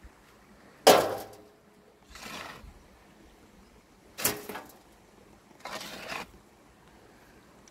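Spade working soil into a wheelbarrow: four strokes of the blade scraping and digging. Two of them land as sharp clanks with a brief ring, the loudest about a second in and another about four seconds in, the blade knocking as earth is tipped off it.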